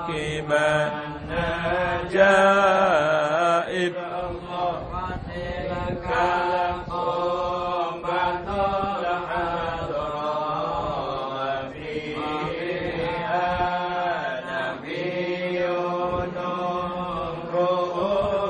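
A group of men chanting an Arabic Islamic devotional text together, in long drawn-out melodic lines.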